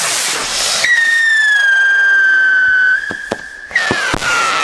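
Whistling firework rockets: a brief rush of hiss at launch, then a loud, shrill whistle that sinks slowly in pitch. Near the end come a few sharp cracks and a second whistle that starts high and falls.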